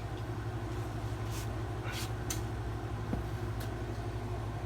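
A few brief scrapes and clicks as a fleshing beam is fitted onto its wall mount, over a steady low hum.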